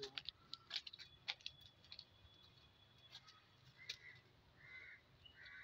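Near silence, with scattered faint clicks and ticks in the first couple of seconds and three short, soft high sounds near the end.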